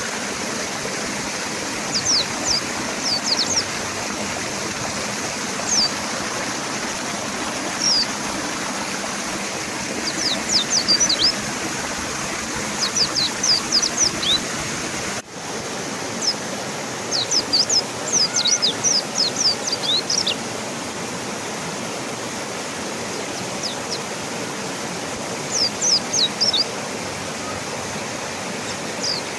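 Steady rush of a fast-flowing river, with mountain white-eyes singing over it in short bursts of quick, thin, high notes every few seconds.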